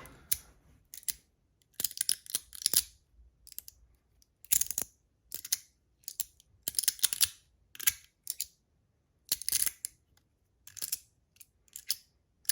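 Magnetic fidget slider worked by hand: an irregular run of short clicks and scraping slides as its plates move and snap between the magnets, some strokes longer and rasping, about a dozen in all.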